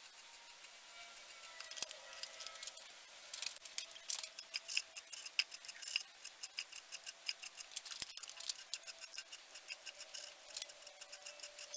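Hand file scraping along the edge of a copper sword guard in quick back-and-forth strokes, sparse at first, then steady from a few seconds in.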